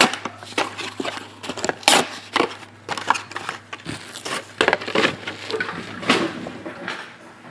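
Plastic and foil card packaging being handled and crinkled, giving irregular crackles and crumpling noises.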